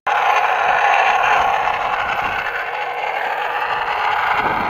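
Traxxas UDR radio-controlled truck running: a steady, noisy whir with no clear rhythm, starting suddenly.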